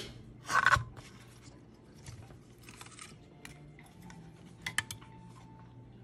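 Small clicks and taps of soldering tools and copper desoldering braid being handled over a circuit board, with a brief louder clatter about half a second in and a few sharp clicks near the end, over a faint low hum.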